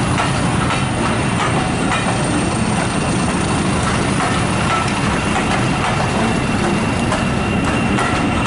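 Railway passenger coaches rolling past close by: a steady rumble of steel wheels on rail, with light clicks as the wheels cross rail joints. A thin, high wheel squeal becomes clearer near the end.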